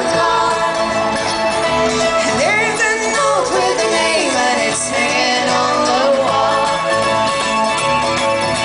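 Live band music played loud over an outdoor PA, recorded from within the audience.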